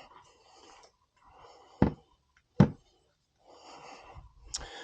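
Two sharp clicks about three-quarters of a second apart while parts are handled during front-wheel removal, with faint breathing around them.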